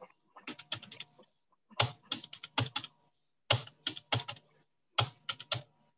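Calculator keys being tapped in four quick runs of several presses each, with short pauses between: a column of figures being added up.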